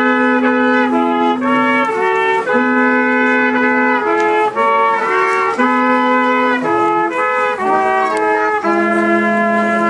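Brass instruments playing a slow tune in two parts: long held low notes under a moving upper melody, in phrases with brief breaks.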